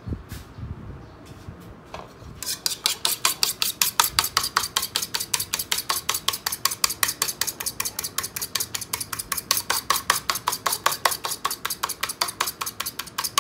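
An egg being beaten in a bowl with an eating utensil, which clinks rapidly and evenly against the bowl at about six strokes a second, starting about two and a half seconds in. A few light clinks come before the steady beating.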